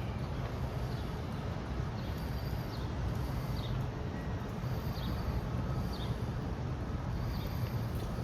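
Steady outdoor background hiss and low hum, with a bird's short, high, falling chirps repeating about once a second.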